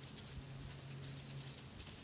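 Faint, irregular patter of footfalls in dry fallen leaves as dogs chase a whitetail deer through the woods, over a steady low hum.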